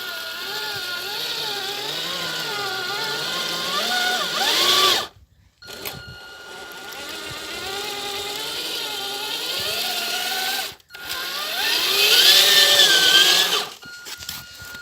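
Electric drive motor and gearbox of an RC scale ZIL-4505 truck whining, the pitch rising and falling with the throttle. It cuts out twice, about five and eleven seconds in, and whines highest and loudest near the end.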